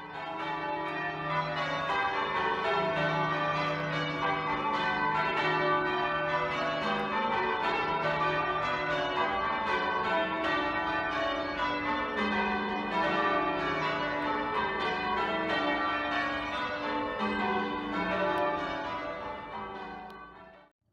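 A ring of eight church bells with a 24 cwt tenor being change rung, strokes following one another in a steady, overlapping stream with the bells ringing on between strikes. The sound fades out near the end.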